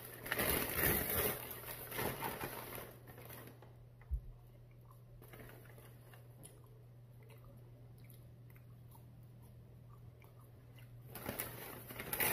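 A person eating KFC fries close to the microphone: crackly chewing noises for the first few seconds and again near the end. A single soft thump comes about four seconds in, and a low steady hum fills the quieter stretch between.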